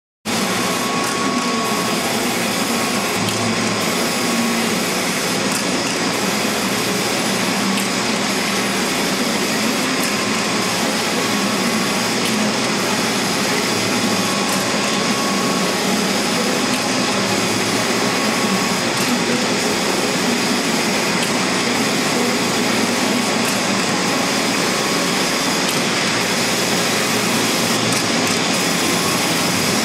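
An industrial machine running steadily under power, a loud even whirring noise that starts abruptly at the beginning, with a faint short tone coming and going now and then.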